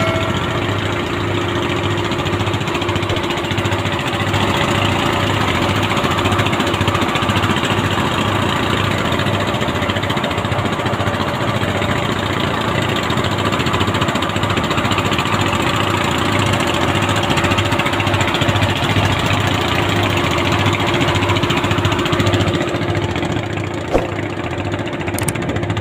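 An engine idling steadily, with an even low throb. A single short knock sounds near the end.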